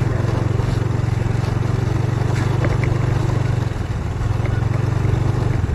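A vehicle's engine running steadily as it drives slowly along a muddy dirt track. The low engine hum eases briefly a little past halfway, then carries on.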